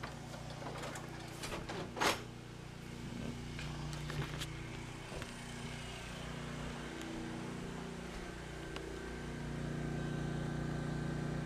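Steady low engine hum, with a few light knocks early on, the loudest about two seconds in.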